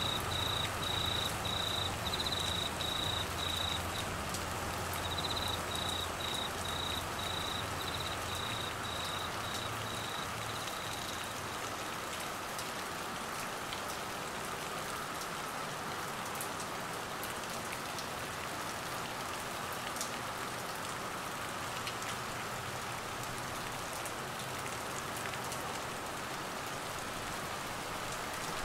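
Heavy rain falling steadily on vegetation and ground. For about the first ten seconds a cricket chirps in a quick, even run of short pulses, pausing briefly around four seconds in, then stops.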